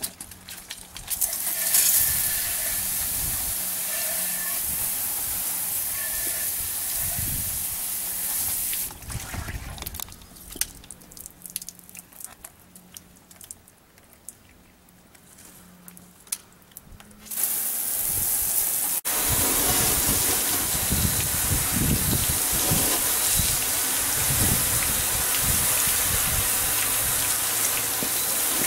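Garden-hose water spraying from a PVC undercarriage washer wand: a steady hiss. It drops away about 9 seconds in to a quieter stretch with scattered clicks, and the spray hiss comes back louder about 17 seconds in.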